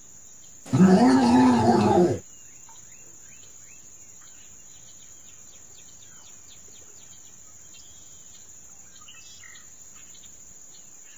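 A cartoon monster's roar voiced by a person, one loud pitched growl lasting about a second and a half, starting just under a second in. After it comes a faint ambience of scattered short chirps under a steady high hiss.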